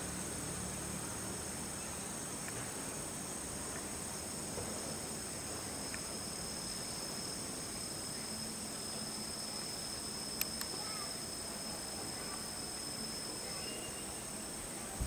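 Steady, high-pitched chorus of insects chirring in the grass, several tones sounding at once without a break. Two sharp ticks come about ten and a half seconds in.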